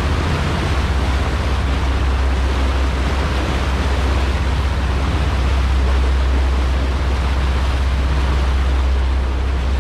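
Fishing charter boat under way: a steady low engine drone under a loud, even rush of wind and water.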